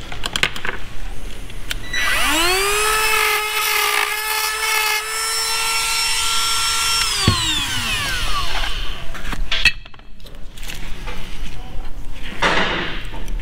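A small cordless power tool's electric motor spins up about two seconds in, runs at a steady whine for about five seconds, then winds down and stops. Clicks and handling noise from bench work come before and after it.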